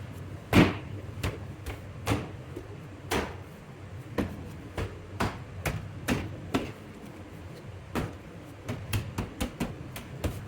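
2015 Audi Q7 inner door panel being pressed onto the door: a string of sharp knocks and clicks, about two a second and quicker near the end, as the panel's push-pin clips are snapped home. The loudest knock comes about half a second in.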